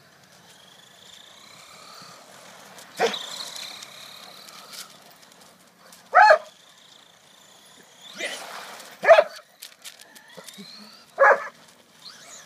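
Doberman barking at an electric RC car: four loud single barks a few seconds apart, with a faint rising high whine from the RC car's motor between them.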